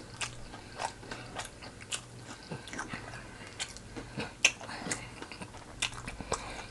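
Close-miked chewing and biting of fried chicken: a run of scattered crisp crunches and wet mouth clicks over a faint steady hum.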